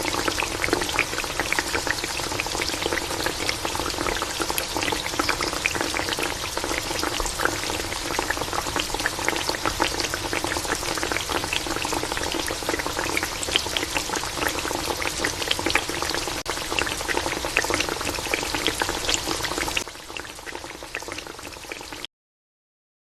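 Yam pieces deep-frying in hot oil: a steady bubbling sizzle with dense crackling spatter. Near the end it quietens, then cuts off.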